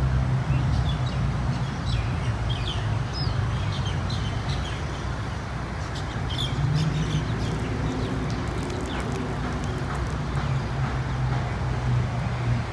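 Small birds chirping in short, scattered calls over a steady low rumble of traffic.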